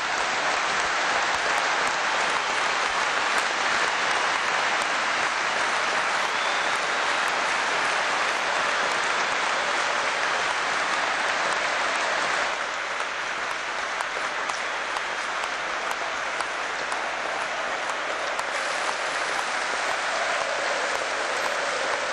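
Football stadium crowd applauding steadily, a long ovation in tribute to a player, easing slightly about halfway through.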